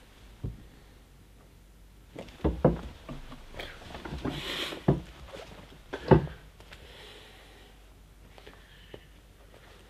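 Handling noise: a few dull thumps, the loudest about six seconds in, and a longer rustle of cloth in the middle as a large plush toy is hugged and shifted about at a table.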